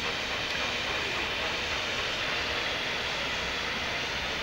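Steam locomotive approaching slowly, giving out a steady hiss of escaping steam with no exhaust beats.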